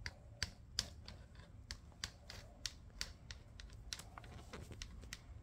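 Faint, irregular light clicks and taps, several a second: handling noise and bare footsteps on a hard terrazzo floor as someone walks while holding a phone.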